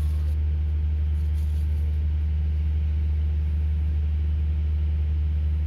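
A steady, low engine-like drone that holds the same level throughout.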